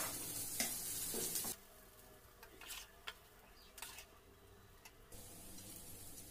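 Fried rice sizzling in a hot pan just after the stove has been switched off. The sizzle cuts off suddenly about one and a half seconds in, leaving only a few faint, scattered clicks.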